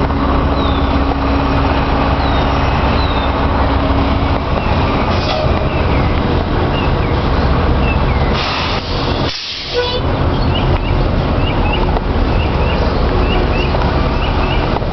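Steady rumble of street traffic and camera handling on the walk, with a low hum that stops about four seconds in and a short hiss about eight and a half seconds in. Birds chirp in short calls throughout, more often toward the end.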